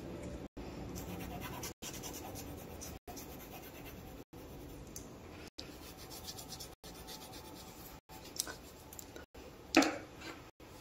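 Faint scratching of a coloured pencil on paper in short strokes, with one louder brush near the end as a hand touches the paper card.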